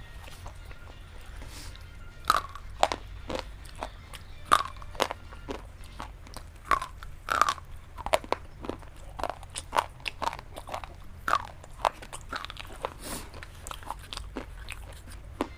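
A person bites and chews something crunchy close to the microphone: sharp, irregular crunches, about one or two a second, over a steady low background hum.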